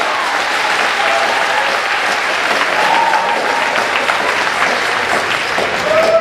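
Audience in a sports hall applauding steadily after a badminton rally, with a few faint voices calling out.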